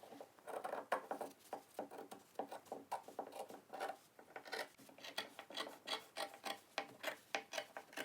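Scissors cutting through dashiki fabric along a marked line, a quick run of short snips several times a second.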